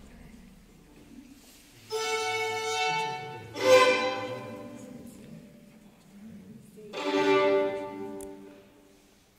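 Solo violin played with the bow: three long notes, each fading away, the last dying out near the end.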